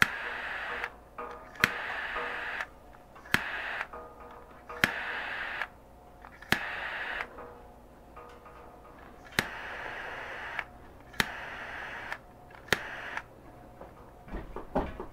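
A handheld heating tool being pulsed on a stainless-steel joint to melt tin-silver solder: a sharp click, then about a second of hiss, repeating every second and a half to three seconds. Near the end comes a short run of faint rattling knocks.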